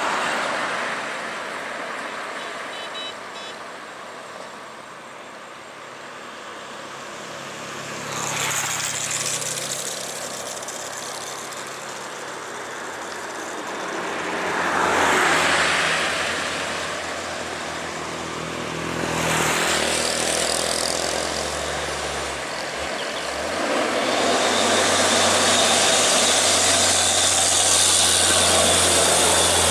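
Highway traffic passing close: vehicles go by one after another, each swelling and fading, about eight, fifteen and twenty seconds in, with a truck engine's low hum under them. From about twenty-four seconds a loaded Hino truck passes close, its diesel engine and tyres the loudest sound.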